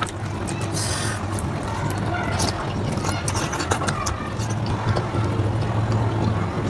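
Wet eating sounds: fingers squishing and mixing oily mutton fat curry with rice on a steel plate, and chewing with many short mouth clicks and smacks, over a steady low hum.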